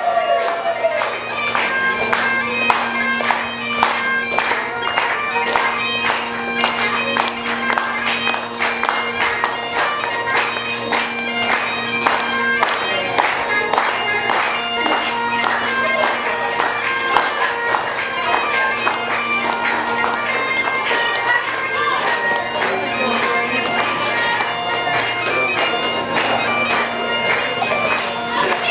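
Bagpipes playing a fast reel, the tune running over steady, unbroken drones.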